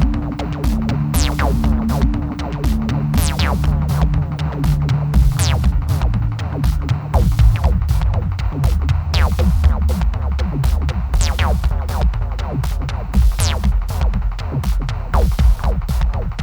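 Electronic background music with a steady pounding beat and high falling sweeps about every two seconds.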